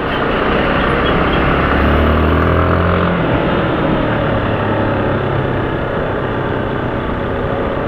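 Motorcycle riding in city traffic: its engine running under a steady rush of wind and road noise, with a deep engine hum from nearby traffic that drops away about three seconds in.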